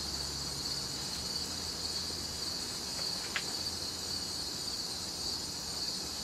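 Steady high-pitched chorus of insects, crickets by its sound, with a low steady hum underneath and one short high chirp about three and a half seconds in.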